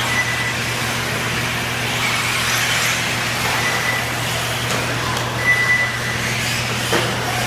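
Electric 1:8 scale off-road RC buggies running on the track: a steady noisy wash with short high motor whines coming and going, over a constant low hum.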